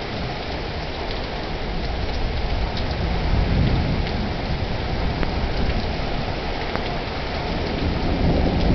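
Heavy rain pouring steadily, with thunder rumbling low, swelling about three seconds in and again near the end.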